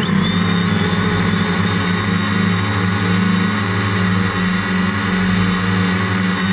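Motors and propellers of a DJI Phantom II quadcopter holding a steady, even drone while hovering, heard from the GoPro mounted on it.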